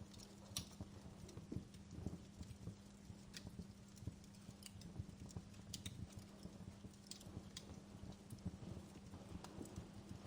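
Wood fire crackling in a fireplace: irregular sharp pops and snaps over a low, steady rumble of burning.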